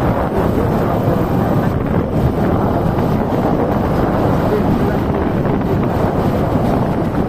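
Steady wind buffeting the microphone on a moving vehicle, with road and engine noise underneath.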